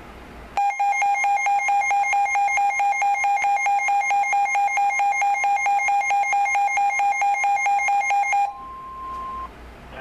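Weather alert radio sounding its alarm for a Severe Thunderstorm Warning: a loud, fast electronic beeping, about five pulses a second, that starts about half a second in and cuts off near the end. A fainter single steady tone, the broadcast's warning tone, follows for about a second.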